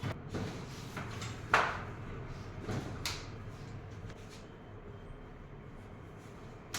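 A few short knocks and rustles, the sharpest about a second and a half in, another pair near three seconds, then quieter.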